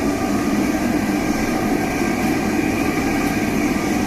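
Dairy processing machinery for making paneer running with a steady, loud mechanical drone made up of several steady tones over a constant hum.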